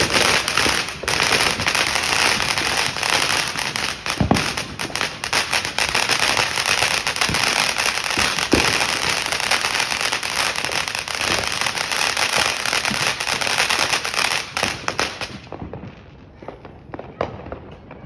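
Fireworks crackling in a dense, rapid run of pops with a few louder bangs, lasting about fifteen seconds. It cuts off suddenly, leaving only scattered pops.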